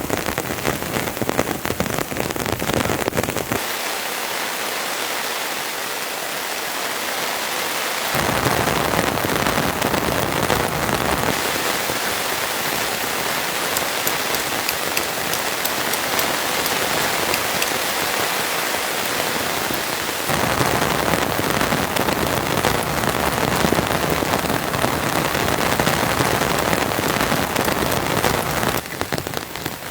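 Heavy, steady rain falling and pattering on surfaces as a dense hiss. Its fullness changes abruptly several times, thinning in the low end between about 4 and 8 seconds in and again between about 11 and 20 seconds in.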